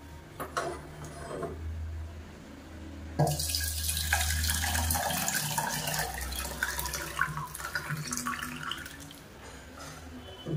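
Thin, hot rasam poured from a kadai into a stainless steel bowl, splashing and gurgling. The pour starts about three seconds in, is loudest at first and tails off over about six seconds.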